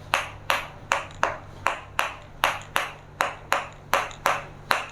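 Steady, regular ticking: sharp ticks about two and a half a second, each fading quickly.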